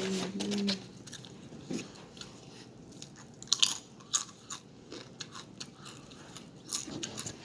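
Close-miked eating: chewing and biting into food, with scattered crisp crunches, the sharpest about three and a half seconds in.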